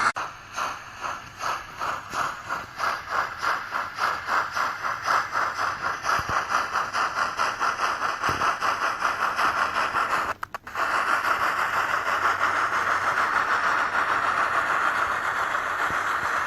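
Steam-locomotive sound from a model railway sound decoder (LeoSoundlab T20 sound) through a small loudspeaker: exhaust chuffs that start about two a second and quicken to four or five a second as the loco gets going. About ten seconds in the sound breaks off briefly, then runs on as a steady hiss with fast, blurred chuffs.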